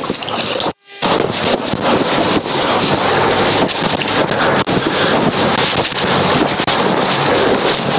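Water of a partly frozen waterfall falling and splashing steadily onto rock and ice, like heavy rain. The sound drops out briefly just under a second in.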